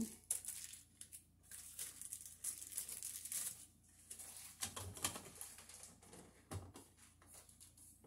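Crinkling and rustling as a new receptacle cover plate is unwrapped and handled, then a few light knocks as the plate is set against the outlet on the wall.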